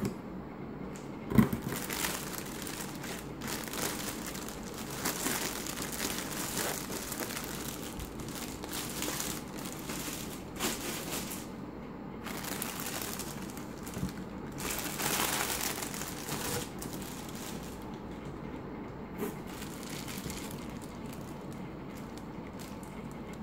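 Clear plastic air-cushion packing pillows and plastic wrap crinkling and rustling in bursts as they are handled and pulled about inside a cardboard box, with a single sharp knock about a second and a half in.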